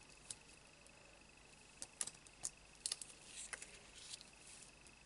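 Faint handling sounds of a sequin-filled plastic pocket and a fuse stencil being positioned by hand: a few scattered small clicks and a soft plastic rustle.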